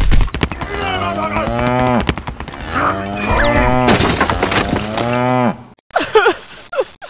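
Cow mooing, added as a sound effect to a toy cow: three long moos in a row, with a sharp crack about four seconds in, then a few short sliding calls near the end.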